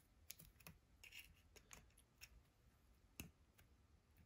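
Faint metal clicks and scrapes of needle-nose pliers bending out the small metal tabs that hold an old boat horn switch's housing together, with one sharper click a little over three seconds in.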